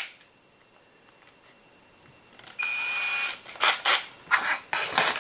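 Cordless drill motor run briefly, under a second, with a steady high whine about two and a half seconds in, with a small No. 52 bit just fitted. Sharp clicks and taps of the drill and bit being handled follow several times near the end.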